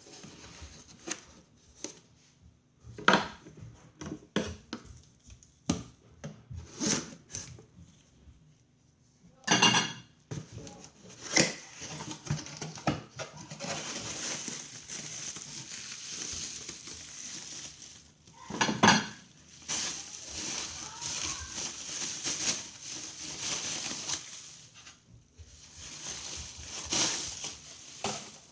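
Hand work on metal parts: a string of sharp clinks and knocks, with long stretches of scraping and rustling in between.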